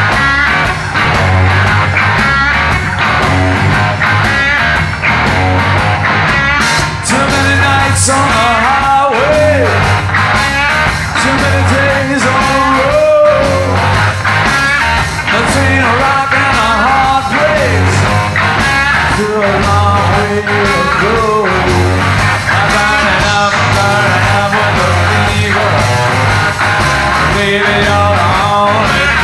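Blues-rock band playing: an electric guitar plays lead lines with bent notes over a steady bass and drum beat.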